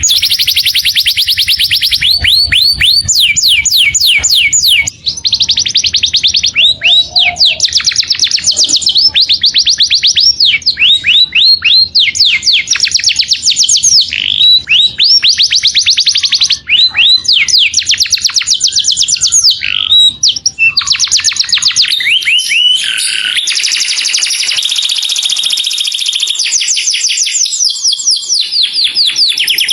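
Canary singing continuously in rapid trills: fast runs of repeated high notes, switching to a new trill every second or two.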